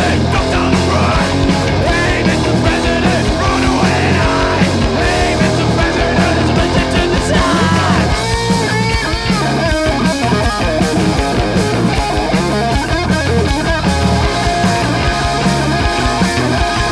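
Live punk rock band playing an instrumental passage, with distorted electric guitar, bass and drums, loud and continuous throughout.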